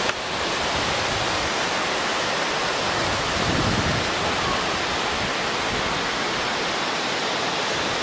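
Steady rush of a waterfall and small cascades: an even wash of falling water.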